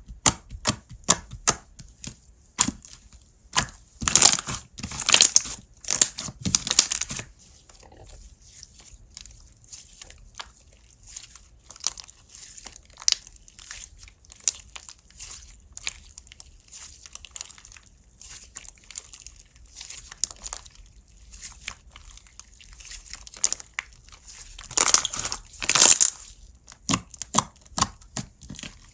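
Slime being squeezed, stretched and pressed by hand, making sticky clicks, pops and crackles, with two stretches of dense, louder squishing a few seconds in and again near the end.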